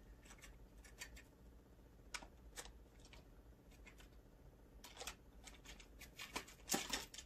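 Faint scattered clicks and light rustling of earrings and their packaging being handled and sorted through, growing busier near the end.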